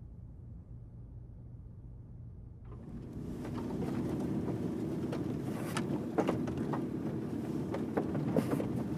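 A faint low hum, then from about three seconds in the sound inside a car driving over a rough dirt track: a steady run of engine and tyre noise with frequent clicks and knocks as it bumps along.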